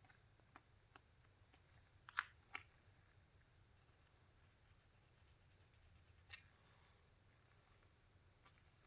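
Near silence with a few faint, sharp clicks of a small part being handled: two close together about two seconds in, another a little after six seconds.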